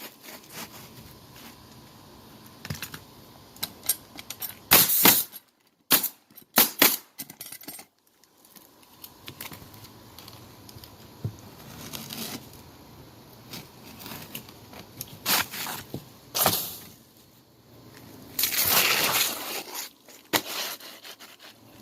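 Pneumatic roofing nailer firing nails through asphalt shingles: several sharp shots at uneven intervals, a cluster about five to seven seconds in and two more later, followed near the end by a longer rushing noise about a second and a half long.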